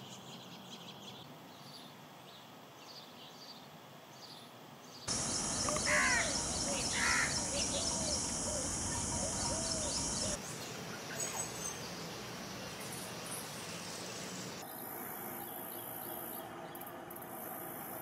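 Outdoor nature sound that changes abruptly several times. A faint hiss comes first. About five seconds in, a steady high-pitched insect drone starts, with a few separate bird calls over it. After that come quieter stretches of steady outdoor background.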